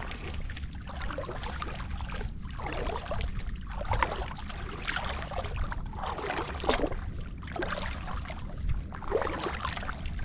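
Lake water splashing and sloshing in irregular strokes, about one a second, over a steady low rumble, as someone moves through the water out to a set net whose float has gone under.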